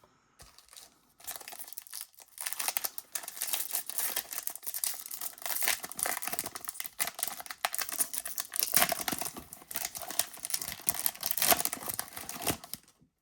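Foil wrapper of a baseball-card pack crinkling and tearing as it is opened, a dense crackle from about a second in until just before the end.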